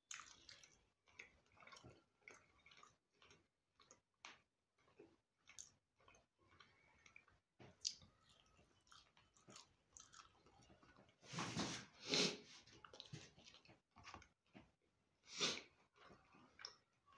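A man chewing fried blue whiting close to the microphone: soft wet smacks and small clicks of the mouth at an irregular pace, with a few louder mouth sounds about two-thirds of the way through and near the end.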